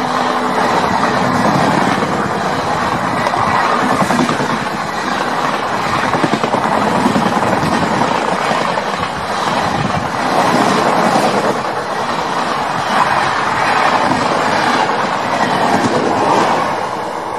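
Passenger train coaches passing close at speed: a loud, steady rumble and rattle of steel wheels on the rails, with clickety-clack over the rail joints.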